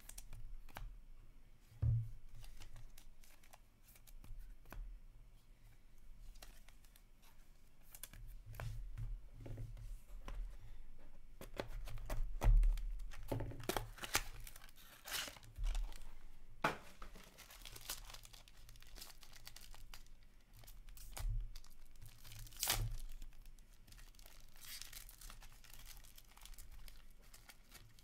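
Trading card packaging being torn open and handled: a small cardboard box of Upper Deck SP Game Used hockey cards opened and its foil-wrapped pack ripped and crinkled. Scattered rustles and clicks, with longer stretches of tearing about halfway through and again near the end.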